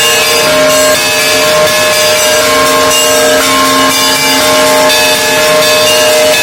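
Russian Orthodox monastery bells ringing a full peal: many bells sounding together, the deeper bells humming on steadily under short, changing notes of the higher bells.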